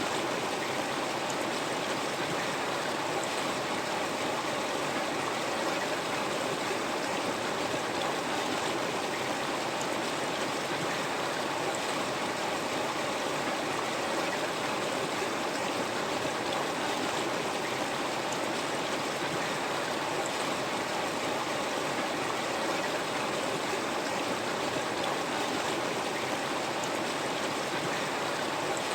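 River water flowing steadily over stones, an even rushing with no change.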